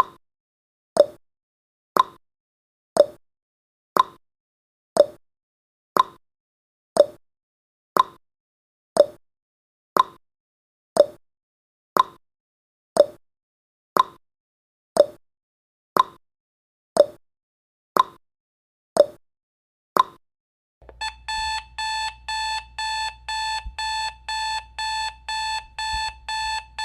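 Countdown timer ticking once a second as the last seconds run out, then, about 21 seconds in, an electronic alarm-clock beep sounds at zero: a fast run of same-pitched beeps, several a second.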